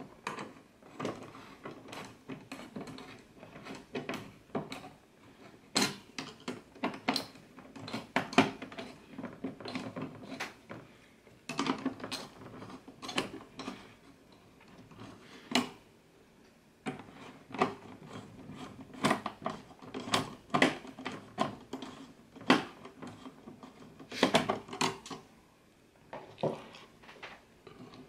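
Irregular clicks, taps and small clattering knocks of hands and a screwdriver working an AMD Wraith Stealth stock CPU cooler loose from a motherboard.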